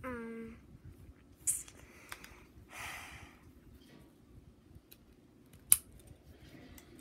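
Plastic harness buckle on a toy stroller clicking as it is fastened: a sharp click about a second and a half in and a louder one near the end, with the straps rustling in between.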